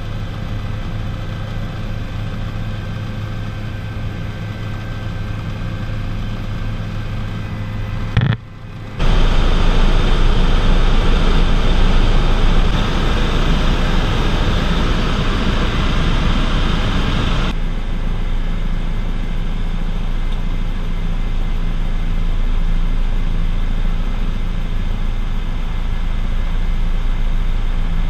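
Helicopter engine and rotor drone heard from inside the cabin: a loud, steady hum with a low pulsing rotor tone. It cuts out for about half a second around eight seconds in, comes back louder and noisier, then settles to a steadier drone about seventeen seconds in.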